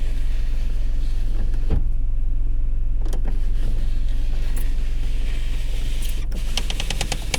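Car window being wound up and down by hand with a crank handle, the glass moving in its channel over a steady low hum. There are a few knocks, then a quick run of clicks near the end.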